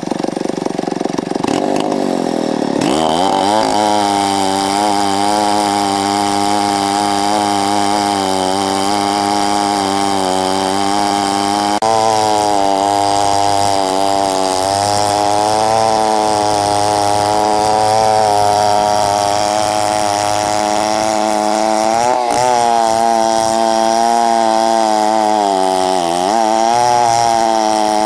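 Big Stihl two-stroke chainsaw idling, then opened up to full revs about three seconds in and held there, ripping lengthwise down through a large oak butt. The revs dip briefly a couple of times near the end as the chain bites.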